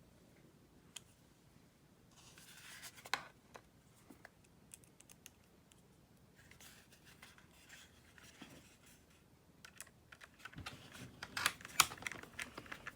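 Scattered light clicks, taps and brief scraping from hands handling a laptop and plugging in its cable, busiest near the end.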